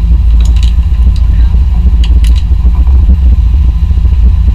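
Sport-fishing boat's engine running with a steady low rumble, with a few faint sharp ticks.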